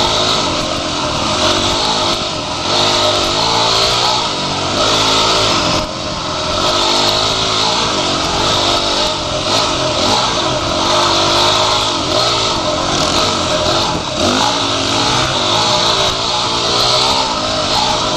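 Dirt bike engine ridden hard on a trail, its revs rising and falling again and again with the throttle and gear changes, with a steady rushing hiss of wind and engine noise over it.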